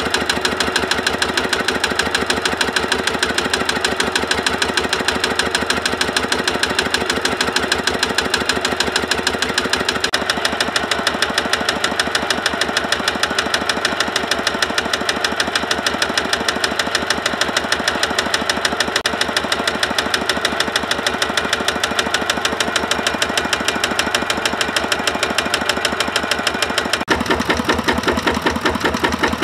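Kubota RT140 power tiller's single-cylinder diesel engine running steadily with a fast, even chugging beat. Its tone shifts abruptly twice, about a third of the way in and near the end.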